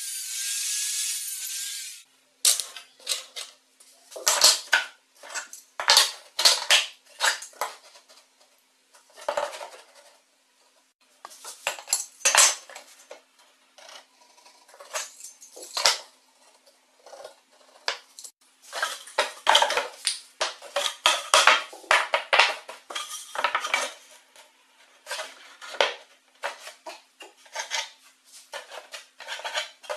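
An angle grinder cutting metal, which stops abruptly about two seconds in. Then irregular clicks, taps and knocks of hand tools and wooden pieces being handled and set down on a wooden workbench, with a faint steady hum underneath.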